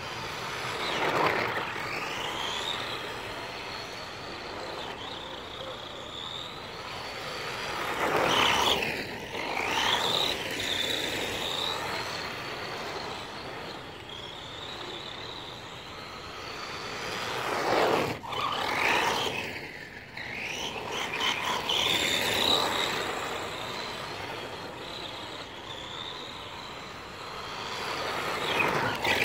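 HPI Mini Trophy Truck RC car with a 27T Saturn brushed electric motor driving on rough concrete: the motor and gears whine, the pitch rising and falling with the throttle. Several times it passes close by and swells louder with tyre noise.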